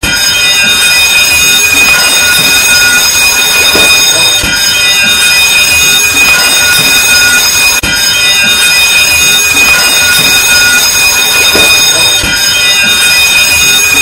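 Ship's fire alarm signal: an electric alarm bell ringing loudly and continuously, without a break.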